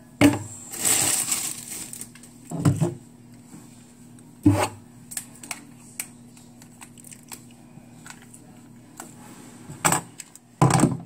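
Small tripod and camera-mount parts being handled on a tabletop: scattered clicks and knocks, with a stretch of rustling about a second in.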